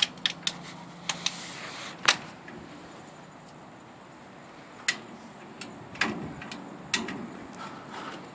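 Irregular sharp clicks and knocks, about a dozen spread unevenly, from the crew working a large semi-hermetic compressor out of an air-conditioning unit on a lift.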